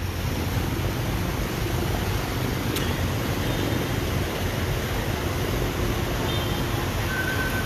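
Fast-flowing floodwater rushing and churning in a steady noise, with a single short click about three seconds in.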